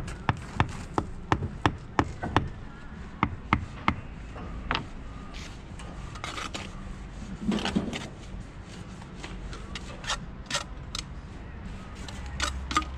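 Hand hammer knocking on old building stone, sharp strikes about three a second, then a rough scrape and shuffle of stone on stone, then a few more scattered knocks near the end.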